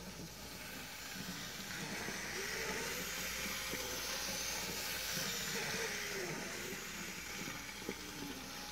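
Märklin Mini-club Z-scale train running around an oval of track: a steady high whirring hiss from its tiny motor and wheels, growing louder over the first few seconds. A faint hum rises and falls in pitch, and there is one small click near the end.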